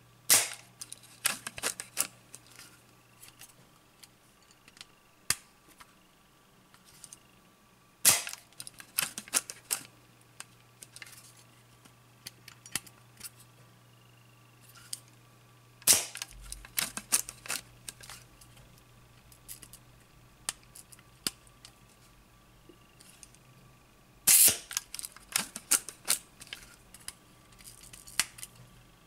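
Soviet Zorki 4 rangefinder's focal-plane shutter being worked by hand. Four times, about every eight seconds, a sharp snap is followed by a quick run of small mechanical clicks from the knobs being turned.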